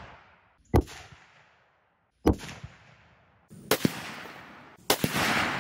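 A 30-06 bolt-action rifle firing several times, about one shot every second or so. Each shot is a sharp crack with a rolling echo tailing off; the last, near the end, is followed by a longer rush of noise.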